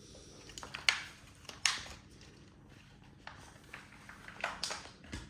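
Several short, sharp clicks and rustles at irregular intervals, the loudest near the start, from objects being handled.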